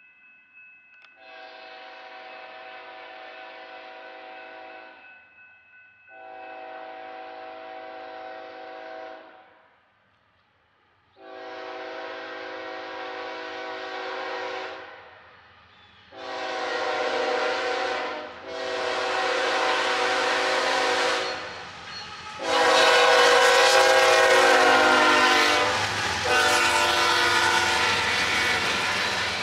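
Locomotive multi-chime air horn sounding a string of about seven blasts, most of them long, each louder than the last as the train approaches. The train's rumble builds under the last blasts.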